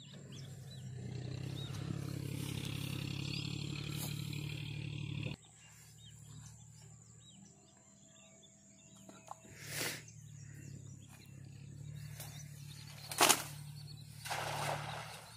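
Steady low rumble from wind and handling for about five seconds, then quieter rustling with a few sharp knocks, the loudest a little after thirteen seconds. A cast net is thrown and lands on the water with a short splash near the end.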